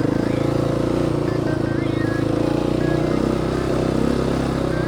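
Dirt bike engine running steadily while riding, its pitch shifting slightly a couple of times.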